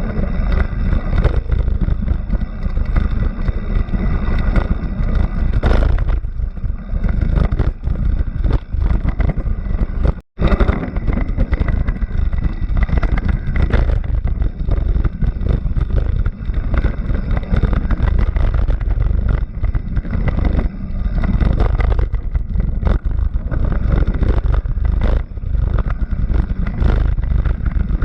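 Racing vehicle's engine running hard and continuously, with a heavy low rumble. The sound cuts out for an instant about ten seconds in.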